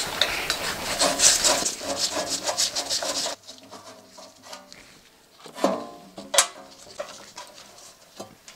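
A screw being backed out of a thin steel cover panel with a hand screwdriver: a dense rasping and scraping for about three seconds that cuts off suddenly. Then the loosened sheet-metal cover is handled, with scattered light clicks and two metallic knocks that ring briefly.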